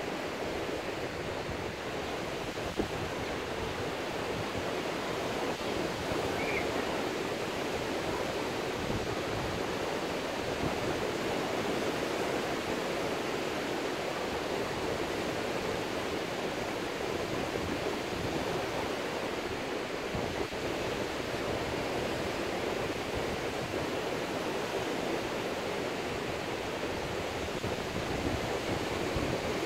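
Surf breaking along a sandy beach, a steady, even rushing wash.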